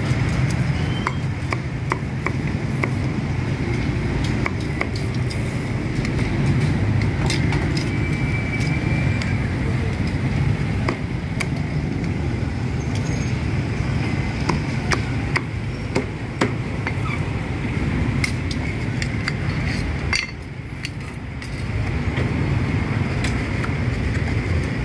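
Busy street food stall ambience: a steady low rumble with many scattered sharp clicks and knocks, which dips briefly about twenty seconds in.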